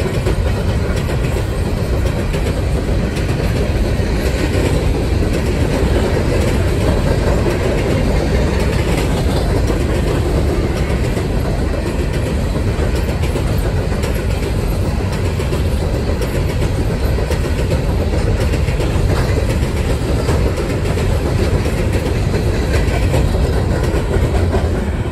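Empty Norfolk Southern coal hopper cars rolling past: a steady, loud rumble of steel wheels on the rails with the clickety-clack of wheels crossing rail joints.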